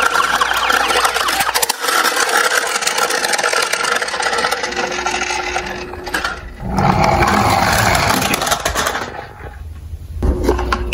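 Plastic toy cars being handled: continuous rubbing, scraping and rattling of plastic against plastic and cardboard.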